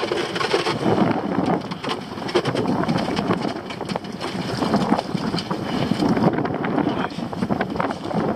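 Wind buffeting the microphone on an open boat at sea, with short knocks and rattles from lobster pots and rope being handled against the boat's side.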